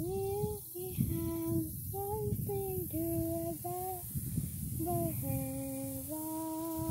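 A child singing a slow tune in held notes, with a short break about four seconds in and a long held note near the end. A low rumbling noise runs underneath.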